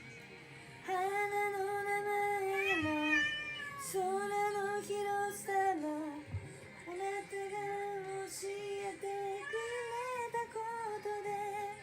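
Domestic cat singing along in long, drawn-out yowling meows: three held notes with short pauses between, each dipping at the end, the last one wavering up and down, mixed with a person's singing.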